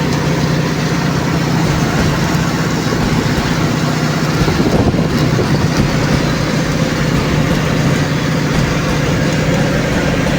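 Automatic pipe girth-welding rig running: a steady, loud drone with an even crackle over it.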